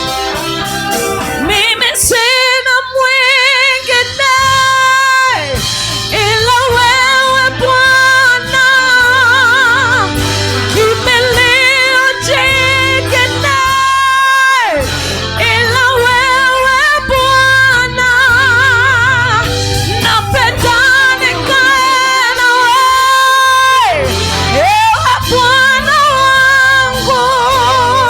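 A worship singer holding long notes with wide vibrato over a gospel worship band, each phrase ending in a falling slide.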